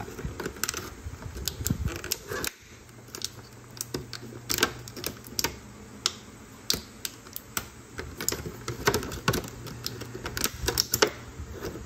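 Scissors snipping through stiff clear plastic packaging, with the plastic crackling: a run of irregular sharp clicks.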